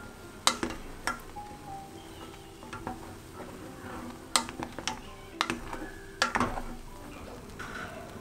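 Wooden spoon stirring boiling egg soup in a stainless steel pot, knocking against the pot several times at irregular intervals, with the soup bubbling.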